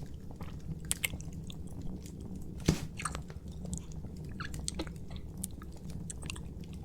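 Close-up ASMR mouth sounds of wet kissing: scattered smacks and tongue clicks right at the microphone, over a steady low hum.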